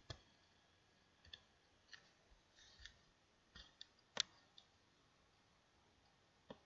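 Faint, irregular clicks of computer keyboard keys as a command is typed, with one louder click about four seconds in.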